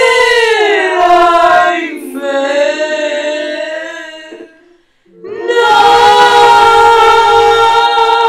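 Choir singing slow, drawn-out notes, fading out to a short break about four and a half seconds in, then coming back in on a long held chord.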